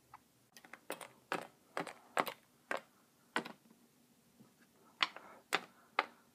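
Hard plastic Littlest Pet Shop figurine tapped step by step on a glossy tabletop as it is walked along: a string of sharp clicks, about two a second, unevenly spaced.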